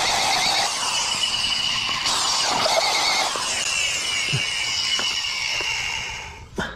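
Corded electric drill running a hole saw through a wooden board: a steady, loud cutting noise with a high squeal running through it. It stops near the end as the drill is lifted away.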